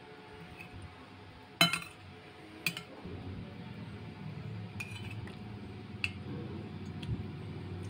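Spoon and fork clinking against a plate during a meal: four sharp clinks, the loudest about a second and a half in. A low steady rumble starts about three seconds in.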